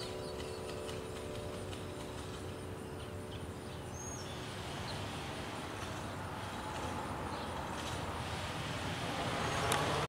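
The last church bell tone dying away over the first second or so. After it comes steady outdoor noise with an occasional bird chirp, and traffic noise swelling near the end.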